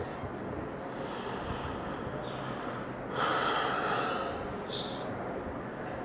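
A person's breath close to the microphone: one audible exhale about three seconds in, lasting about a second, and a short high hiss near five seconds, over faint steady background hiss.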